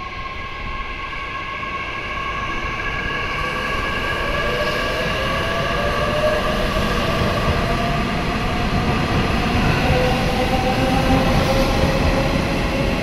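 Nishitetsu 9000 series electric train pulling away from the platform. Its SiC-hybrid IGBT-VVVF inverter and traction motors whine in several tones that rise slowly as it accelerates, while the wheel and running noise grows louder. A brief knock comes right at the start.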